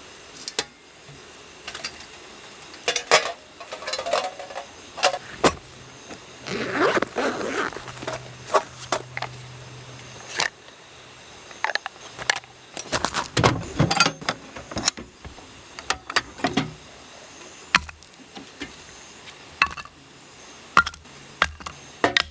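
Handling noises: a string of small clicks and knocks, with two longer spells of rustling, about six seconds in and again about thirteen seconds in.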